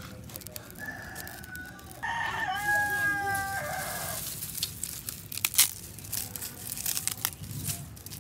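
A rooster crows once, a pitched call of about two seconds. A run of sharp clicks follows.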